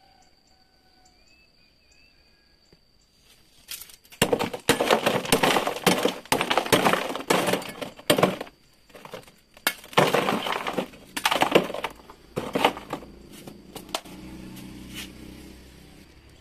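A broad-bladed knife chopping and crushing honeycomb coal briquettes in the bottom of a plastic pot: quick runs of crunching, cracking strikes begin about four seconds in and thin out to a few last blows near the end.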